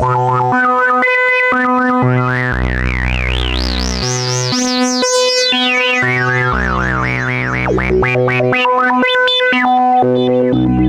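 PAiA Fatman analog synthesizer playing a repeating note pattern with a deep bass note about every four seconds, over a high whistling tone that warbles quickly up and down as it climbs and then falls, with added effects.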